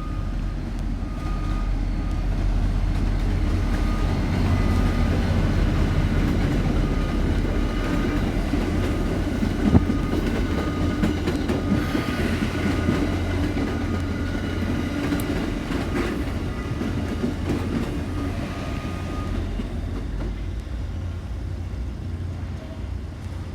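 A train passing, a steady low rumble that builds over the first few seconds and slowly eases off. A faint high beep repeats in the background through most of it.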